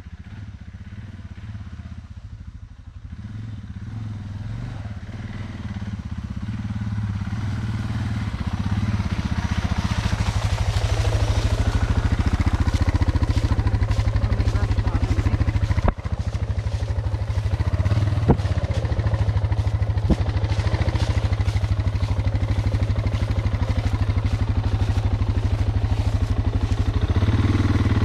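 Suzuki DR650 single-cylinder engine running on a dirt trail, growing louder over the first ten seconds or so and then holding steady. A few sharp knocks sound about halfway through.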